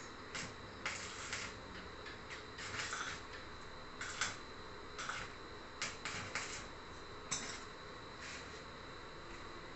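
Stick-welding arc crackling in short, irregular bursts, about eight of them, as the electrode is struck again and again to tack the joints of a steel tube frame. A faint steady high tone runs underneath.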